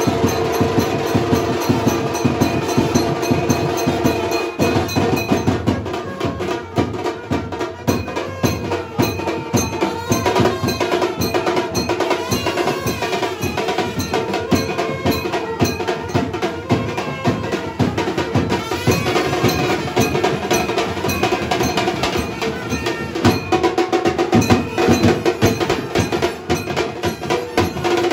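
Festival music led by fast, dense drumming, with a held melody line over it that is strongest at the start and again near the end.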